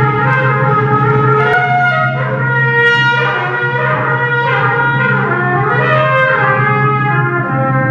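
Free-improvised jazz trumpet holding notes and sliding the pitch down and back up in several bends, with a few light strokes on the drum kit.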